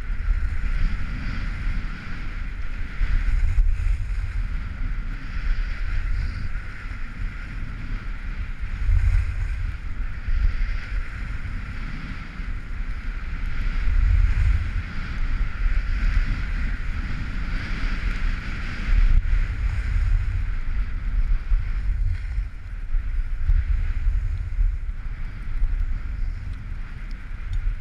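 Wind buffeting the microphone of a camera worn by a skier heading downhill, a low rumble that swells and eases in gusts, over a steady hiss of skis sliding on packed snow.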